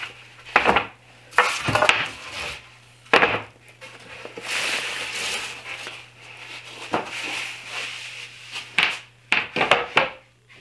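Pine boards knocking and clattering against one another as they are gathered into a stack and lifted off a workbench, with a longer scraping rub near the middle.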